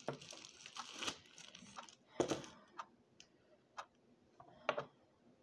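Clear plastic packaging crinkling while drizzled pretzels are handled, then a few separate sharp clicks and snaps, the loudest about two seconds in.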